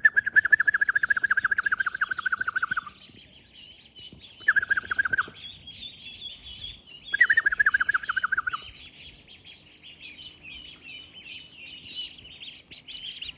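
Ducklings peeping, a high chirping that grows busier about a third of the way in. Over it come three bursts of a louder, lower, rapid trill of chirps: a long one at the start, a short one about four seconds in, and another a little after seven seconds.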